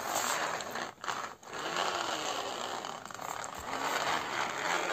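Small plastic toy car's wheels and gear mechanism rattling as it is pushed back and forth along the floor by hand, with two brief pauses about a second in.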